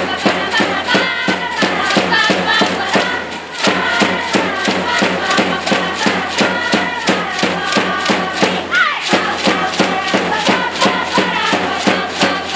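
A crowd of supporters singing a cheering song in unison over a steady, fast beat, about four beats a second.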